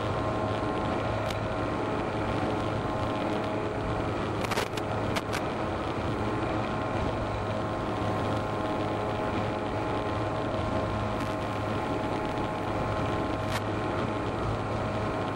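Electric motor and propeller of a radio-controlled FPV plane running steadily under power, a constant drone with a steady whine and wind rush, heard through the onboard camera. A few brief clicks break in, a cluster of them about four to five seconds in.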